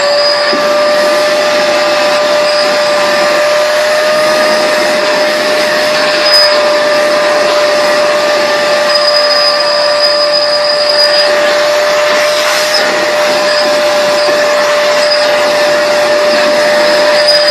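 Shop vac running steadily with a high motor whine, vacuuming up sawdust.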